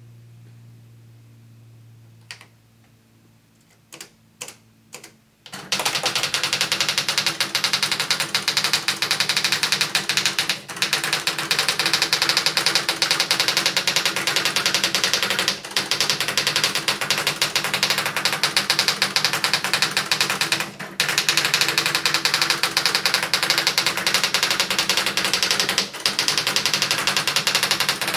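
Tandy WP-100 electric typewriter: a few single key clicks over a low hum, then about six seconds in it starts printing continuously, a fast unbroken run of type strikes with short breaks about every five seconds. It is printing random gibberish by itself, a fault whose cause is unknown.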